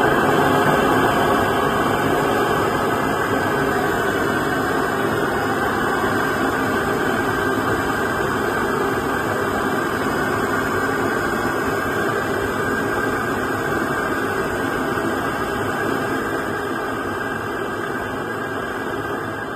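Butane jet torch lighter burning with a strong flame: a loud, steady hiss that slowly eases in level.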